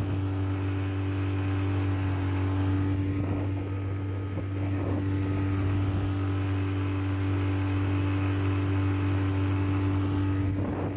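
Honda 20 hp four-stroke outboard motor running steadily at cruising speed, driving an inflatable boat across the water, a constant drone over water and wind noise.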